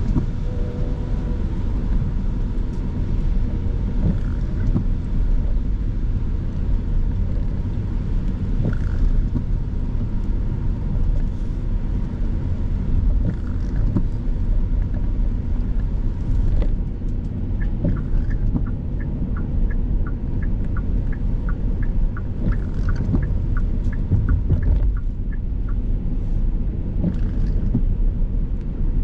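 Steady engine and tyre rumble inside a car being driven. In the second half, a regular ticking, about two a second, runs for several seconds, the sound of a turn-signal indicator.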